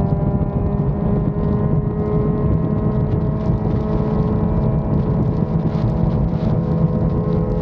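Motorcycle engine running at steady cruising revs, its pitch creeping up slightly, over a heavy low rumble of wind and road noise.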